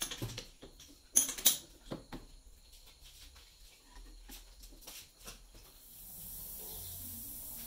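Metal clinks and knocks from hand work on a stopped lathe's four-jaw chuck, with a chuck key and tools striking the steel jaws; two sharp clicks about a second and a half in are the loudest. From about six seconds in a steady hiss takes over.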